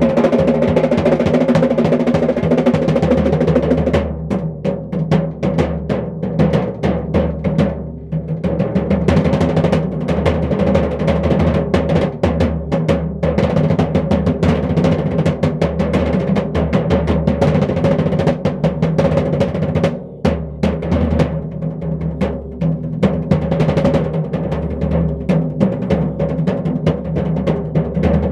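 Fast drum roll played with bare hands on a snare drum and a floor tom: a dense, continuous flurry of strokes with the drumheads ringing underneath. It eases off briefly a few times before picking back up.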